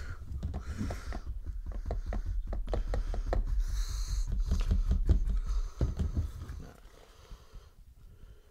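Paintbrushes scrubbing and dabbing on small canvases right by a desk microphone, a quick run of scratchy strokes and taps over dull low knocks through the table. It dies down about six seconds in.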